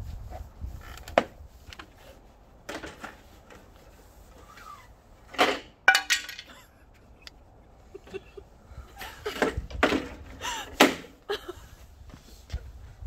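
Knocks, clicks and rattles from a Bosch GTS 635-216 table saw being handled and set in place with its motor off. There are single knocks early on, a loud cluster of clattering about halfway, and another group of knocks near the end.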